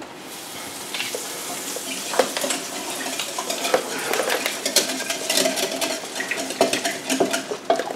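A metal fork clinks and scrapes against dishes in irregular sharp taps, over a steady frying sizzle from a pan.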